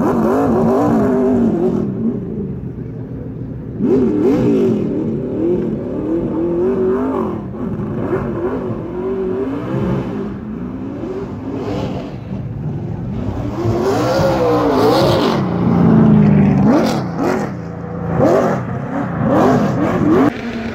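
Race cars' engines on an ice track, revving up and dropping back again and again, loudest a few seconds before the end.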